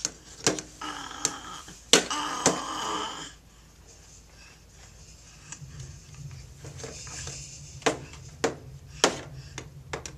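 Toddler knocking and slapping on a plastic baby activity table: a few sharp knocks in the first few seconds, then a run of four knocks about half a second apart near the end.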